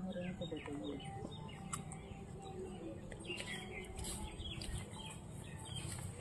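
Birds chirping: many short, falling chirps repeated several times a second, with some lower calls in the first second.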